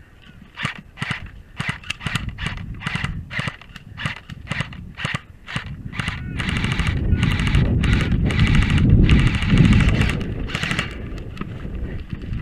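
Airsoft guns firing: short bursts and single shots at first, then long rapid full-auto bursts from about halfway through. A low rumbling noise rises under the firing and is loudest near the end.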